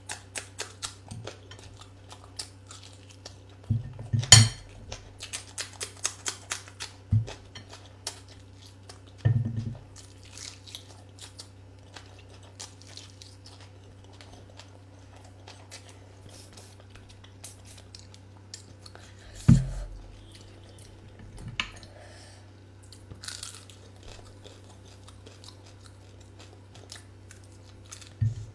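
Close-up eating sounds: chewing and crunching, with a quick run of crunches about four seconds in and a few sharp knocks, the loudest near the start and around twenty seconds in.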